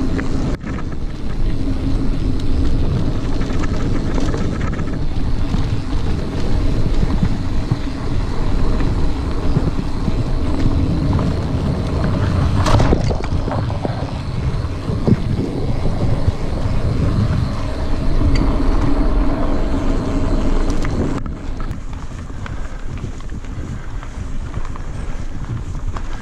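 Mountain bike ridden fast on a forest trail: wind buffeting the microphone over the steady rumble of knobby tyres on dirt and grass, with one sharp clack about halfway through. A little over 20 seconds in, the sound drops quieter and changes as the trail surface changes.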